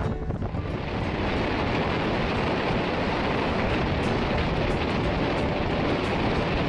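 Wind buffeting the microphone in the open cockpit of a 1950 MG TD roadster on the move, with the car's engine and road noise underneath as one steady rush.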